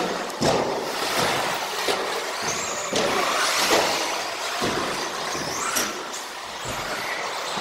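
Radio-controlled buggy racing on a carpet track: a high electric motor whine that rises and falls with the throttle, over tyre noise, with a few sharp knocks.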